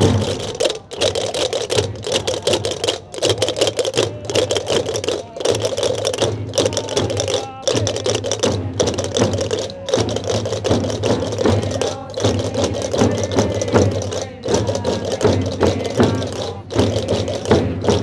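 Gomeran chácaras (large wooden castanets) clattering rapidly and without a break over the beat of wooden frame drums struck with sticks, a traditional procession accompaniment.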